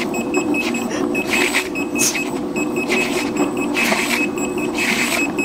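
One-wheel electric hoverboard motorcycle running under the rider: a steady electric motor hum and a high electronic beep repeating several times a second. Short hissing swishes come about once a second.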